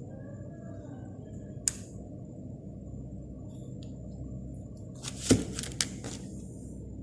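Handling noise of a smartphone being held and worked: a single sharp click about a second and a half in, then a short flurry of clicks, taps and rustles about five seconds in with one louder knock, over a steady low room hum.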